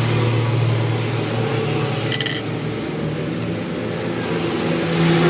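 Yamaha Mio i 125 scooter's single-cylinder engine running steadily after a top overhaul, its pitch easing down a little after its revving. About two seconds in, a short metallic clink rings out, like a small metal part or tool set down.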